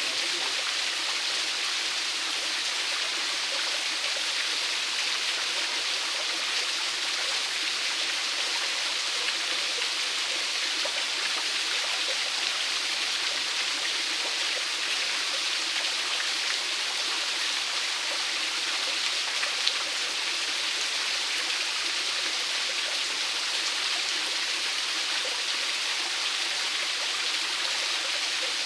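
Small waterfall: water falling and splashing in a steady, even rush of running water.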